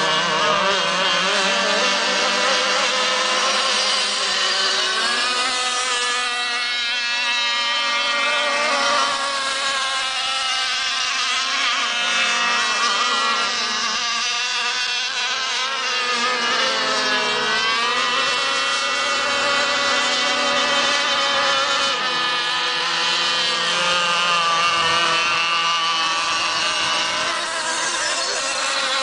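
Several radio-controlled racing boats' small high-revving engines whining together, their pitches rising and falling as the boats speed up, slow and pass by.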